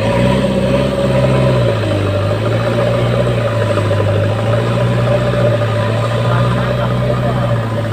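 Diesel engine of a JCB earthmoving machine running steadily, its pitch dropping slightly about two seconds in, then holding at a steady rumble.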